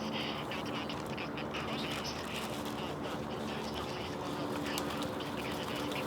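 Birds calling over a steady low hum.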